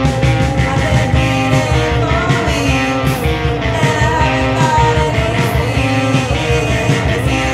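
Grunge rock song: electric guitar over bass and drums keeping a steady beat.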